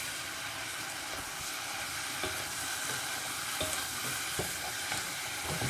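Chunks of wild boar and onions sizzling in oil in a hot pan over high heat, stirred with a wooden spatula that knocks against the pan a few times.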